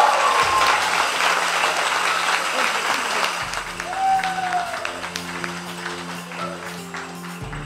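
A small crowd applauding, the clapping thinning and dying away over several seconds. Soft background music with long held notes comes in beneath it.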